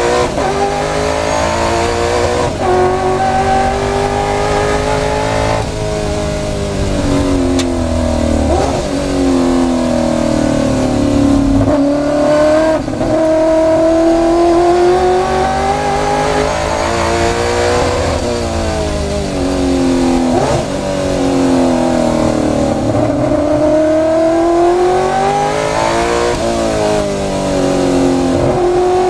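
Race car engine at full racing load, heard from inside the car. It revs up through the gears with sudden drops in pitch at each change, then falls away on the way into corners, several times over.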